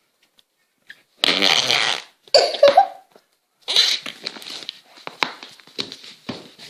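Slime noise-maker pot making fart-like noises as fingers push into the goo: a long one about a second in, a shorter one with a pitched bend soon after, then a run of short wet squelches and pops.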